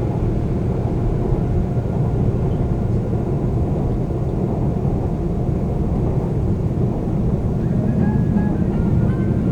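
Seoul subway train running between stations, heard from inside the car: a steady low rumble of wheels on rails and car body noise. Faint high steady tones join in near the end.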